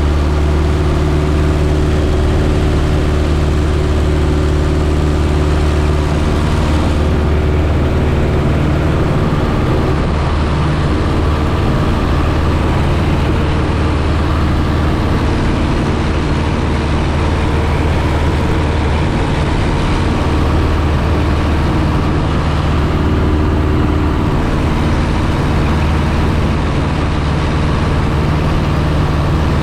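Piper J3 Cub's engine and propeller running at a steady cruise power, heard from the cockpit under a constant rush of air.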